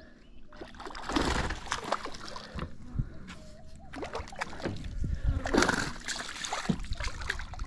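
A small hooked barramundi splashing and thrashing at the water's surface as it is played to the boat, in uneven bursts, the strongest about a second in and again about five seconds in.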